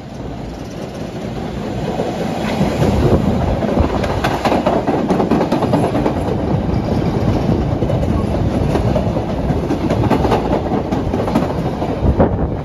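CTA Brown Line 'L' train approaching and running close past, with a loud, steady rumble and clickety-clack of wheels over the rail joints. It grows louder over the first few seconds and cuts off sharply near the end.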